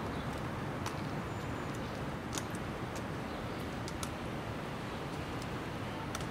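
Steady outdoor background noise, a low rumble of passing traffic and air, with a few faint clicks.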